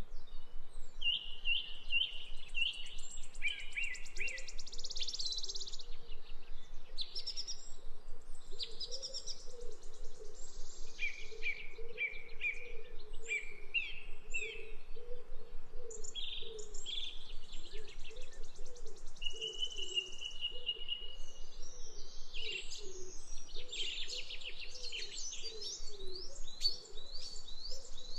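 Birds chirping and singing, many short repeated calls and trills overlapping.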